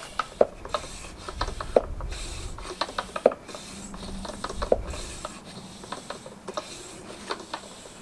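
Hand air pump inflating the small pneumatic inner tube of a mobility-scooter rear tyre through a hose on the valve: repeated rasping strokes, each ending in a click, about one every second and a half, lighter in the last few seconds.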